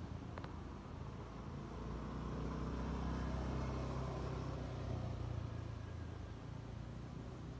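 A motor vehicle's engine passing by: a low rumble that swells about two seconds in and fades away near the end. A single sharp click comes just before it.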